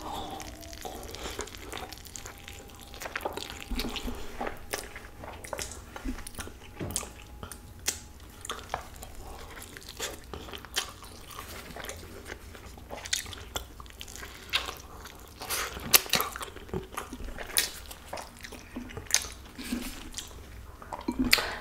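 A person biting into and chewing a large flour-tortilla burrito close to the microphone: soft, wet mouth clicks and smacks scattered all through.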